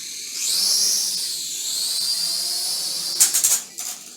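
A small toy quadcopter's four motors and propellers spin up to a high whine that wavers in pitch as it lifts off. About three seconds in there is a quick clatter of knocks as the drone bumps into something, and the whine cuts off.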